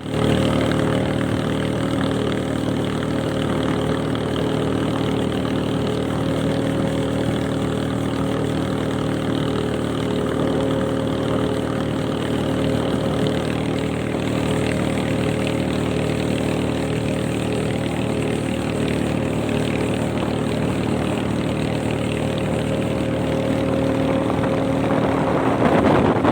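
Motorboat engine running steadily at a constant pitch. A rushing noise of wind or water builds up near the end.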